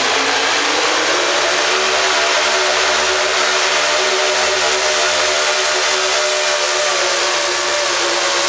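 Hot rod pulling tractor's engine running loud and steady, its pitch shifting only slightly, echoing in an indoor arena.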